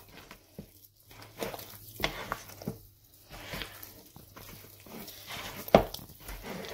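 Wet, sticky muufo dough squelching and slapping as a hand squeezes and kneads it in a plastic bowl, in irregular strokes, with one sharper slap near the end.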